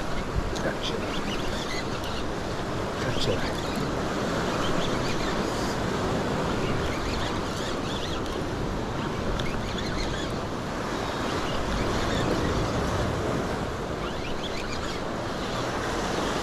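Ocean surf washing over shoreline rocks, a steady rushing noise.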